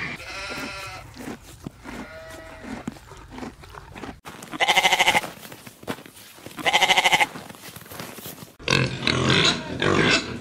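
Livestock bleating: a few fainter calls, then two loud, quavering bleats about two seconds apart. A sudden switch to a different, busier mix of animal sounds comes about eight and a half seconds in.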